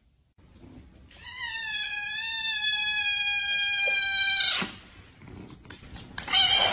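A kitten gives one long, high meow lasting about three and a half seconds, its pitch slowly sinking. Near the end a shorter, rougher cry follows.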